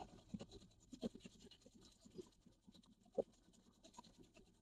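Near silence with faint scattered scratches and small clicks, one slightly louder click about three seconds in.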